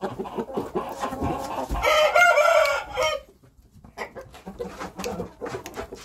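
Game cockerel crowing once, a short wavering crow about two seconds in. Clucking comes before it, and scattered sharp clicks follow it.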